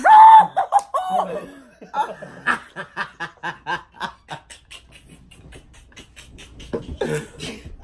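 Boys laughing: a loud laugh at the start, then quick, breathy giggling in short bursts that dies down past the middle and picks up again near the end.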